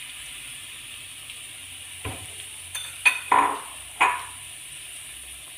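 Shallots frying in hot coconut oil in a pan, a steady sizzle, with a spoon knocking and scraping against the pan about four times in the middle as they are stirred.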